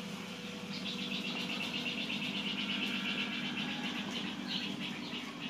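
A rapid pulsing trill from a small animal, starting about a second in and fading out after about four and a half seconds, over a steady low hum.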